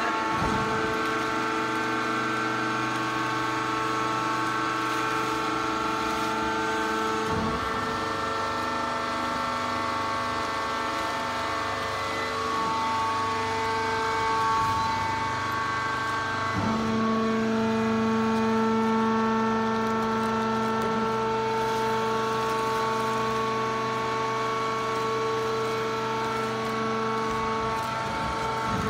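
Wood-chip horizontal bagging baler running: a steady machine hum with several whining tones, the pitch shifting abruptly twice, about a quarter of the way in and again past halfway, as the load changes.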